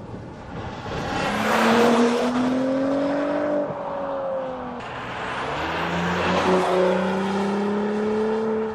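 A 2017 Audi S5 Coupe's turbocharged V6 pulling under acceleration. The revs climb, ease back about four seconds in, then climb again steadily, over road and wind noise.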